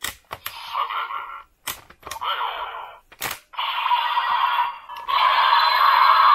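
DX Dark Z Riser toy scanning Ultra Medals: sharp plastic clicks as the medal blade is moved, and electronic scan sound effects from its small built-in speaker, building into a longer sustained effect in the second half.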